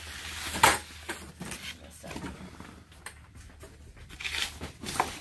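Cardboard boxes being handled and shifted: rustling and a few sharp knocks, the loudest about half a second in.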